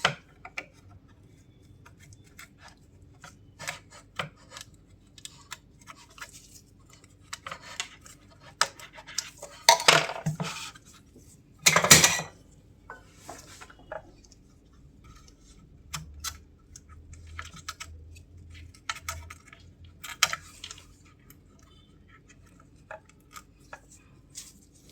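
Small metal tools clicking and scraping against a circuit board as a desoldered optocoupler is worked loose and pulled out, with a few louder knocks about ten and twelve seconds in.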